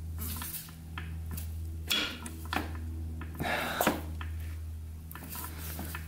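A few metallic clicks and clatters as the seized crankshaft of a Kawasaki KX125 two-stroke engine is forced to turn a little. The crank is really tight and barely moving. A steady low hum runs underneath.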